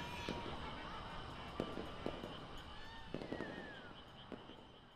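Distant fireworks: scattered sharp pops and a few gliding whistles over a low rumble, fading out steadily.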